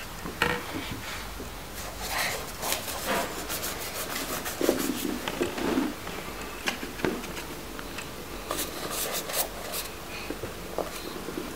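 Paintbrushes rubbing and scrubbing on paper in short strokes, with scattered light clicks and taps.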